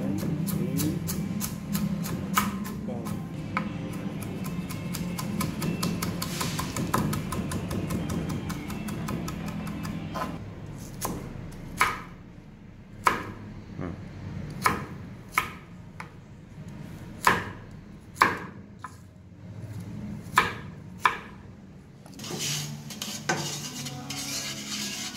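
Knife chopping on a cutting board: a fast run of quick, even strokes for about the first ten seconds, then slower single chops, roughly one a second.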